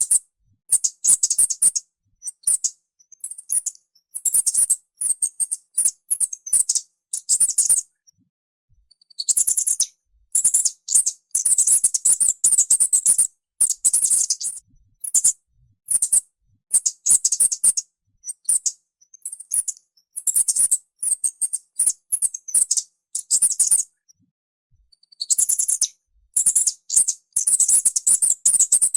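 Mouse squeaking: rapid trains of high, thin squeaks in clusters of a second or two, broken by short silences, with two longer pauses, about eight seconds in and again about twenty-four seconds in.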